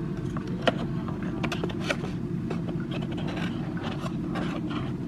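Small cardboard drawer of a tea advent calendar and a tea sachet being handled: a string of light clicks, taps and rustles as the drawer is pushed shut, over a steady low hum.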